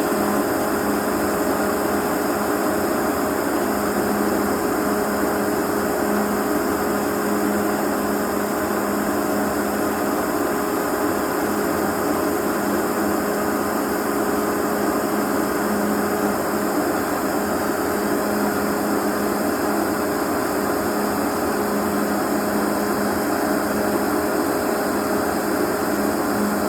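Snowmaking gun running continuously: a steady loud hiss of air and water spray over a constant machine hum.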